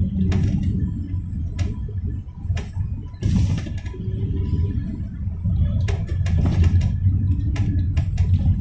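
Cabin noise inside a GAZelle Next minibus under way: a steady low drone from its Evotech engine and the road, with frequent short rattles and clicks from the body and fittings, and a brief rush of noise about three seconds in.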